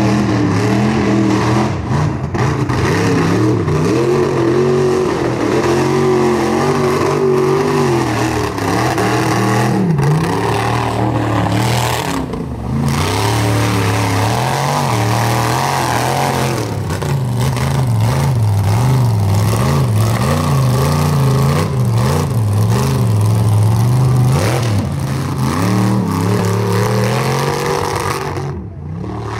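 Lifted mud trucks' engines revving hard as they drive through mud holes, the pitch climbing and dropping again and again, with a steady hiss of churned and flung mud and water over it.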